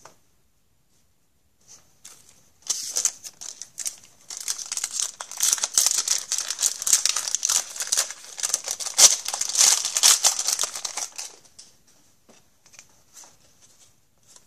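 Wrapper of a 2011-12 Upper Deck Series 2 hockey card pack being torn open and crinkled by hand. A few crackles start about three seconds in, then steady crinkling runs for about seven seconds and stops about eleven seconds in.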